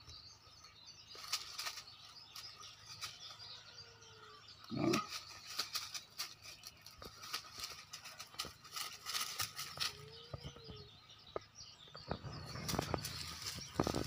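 Dry fallen leaves and grass rustling and crackling as a dog and a cat play-fight on the ground. One short, louder sound comes about five seconds in, and the rustling gets busier near the end.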